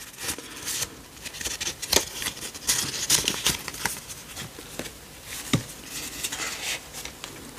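Paper handling: stiff journal paper rustling, with scattered light taps and crackles as a folded paper insert is worked and tucked back into the page.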